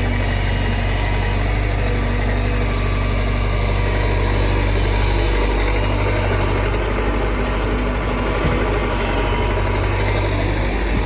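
Hitachi backhoe's diesel engine running steadily with a deep, even hum.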